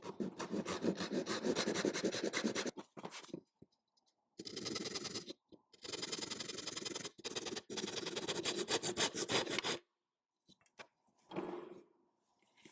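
Wood being scraped or rubbed with a hand tool in quick back-and-forth strokes, in three bouts with short pauses between. A short, duller sound follows near the end.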